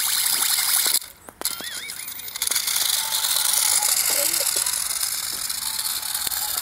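Small electric drive motors and plastic gearboxes of a two-wheeled GbLife PEG-88 RC stunt car whirring with a fast ratcheting rattle as it drives over brick pavers. The sound stops briefly about a second in, then picks up again and runs steadily.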